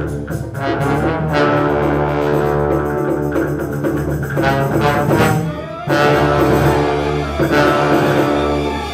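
Full orchestra playing loudly in sustained chords; the sound thins briefly about five and a half seconds in, then the full orchestra comes back in strongly.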